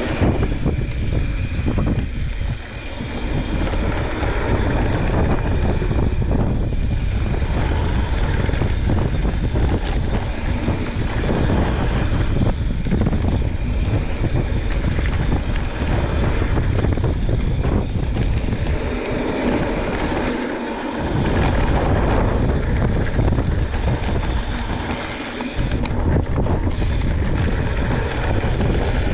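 Wind buffeting an action camera's microphone during a fast descent on a YT Jeffsy 29 full-suspension mountain bike, with tyre noise over the dirt trail and the bike rattling. The low rumble eases off briefly three times.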